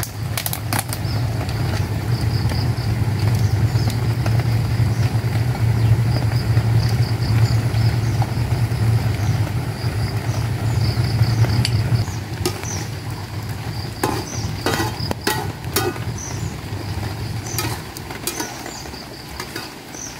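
A steady low motor hum, like an engine running, that weakens after about twelve seconds and dies away near the end. Over it come a few sharp clinks of a spoon on a plate and container, and a steady high chirring in the background.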